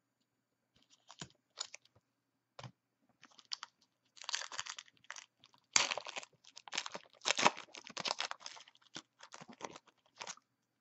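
Foil trading-card pack wrapper crinkling and crackling as it is handled and torn open, sparse at first, then a dense run of loud crackles in the middle.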